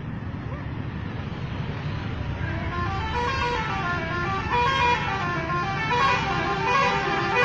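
Bus 'telolet' horn, a set of multi-tone air horns, playing a stepping tune of notes over the low rumble of the bus and traffic. The horn comes in a few seconds in and grows louder toward the end.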